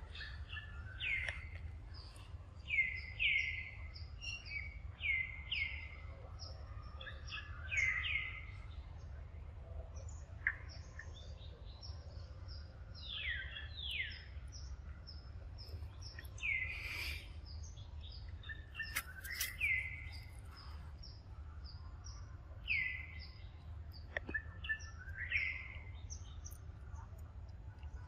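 Birds calling: many short chirps that sweep downward in pitch, repeated at irregular intervals, over a steady low background hum.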